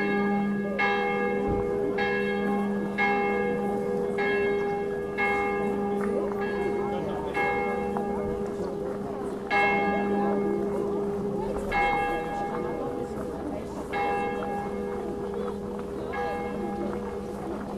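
Church tower bell, the third bell of an electrified five-bell peal, swinging with a falling clapper in a full-circle peal (distesa). It strikes about once a second, then from about ten seconds in the strokes thin to roughly one every two seconds as the swing dies down at the end of the ringing, with a steady hum lingering between strokes.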